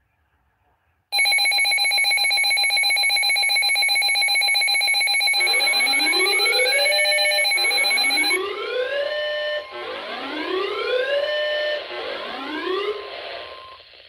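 NOAA weather radio sounding an alert for a Special Marine Warning. After a second of near silence, a loud pulsing electronic alarm tone comes on. Partway through, rising whooping siren sweeps repeat about every one and a half seconds over a steady tone, and the alarm fades near the end.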